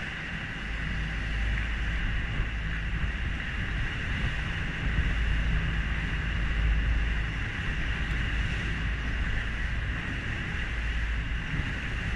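A dive boat's engine running steadily under way, with water rushing and splashing along the hull and wind on the microphone. The low rumble swells for a few seconds in the middle.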